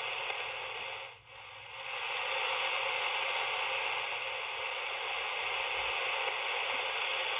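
Receiver static from an HF transceiver in AM mode: a steady hiss of band noise from the radio's speaker. The noise dips briefly about a second in and then swells back up and holds as the Z-match tuner's knobs are turned; a louder noise floor is the sign that the tuner is near a match.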